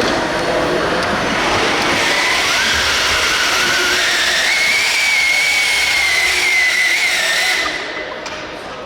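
RC pulling truck or tractor making a pull, its drivetrain whine rising in pitch over about two seconds, holding steady, then dropping away near the end as the run stops.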